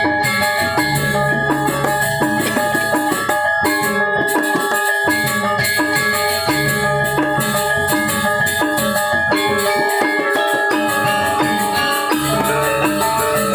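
Balinese gamelan gong ensemble playing: many bronze metallophones and gongs struck in fast interlocking patterns, their tones ringing over one another.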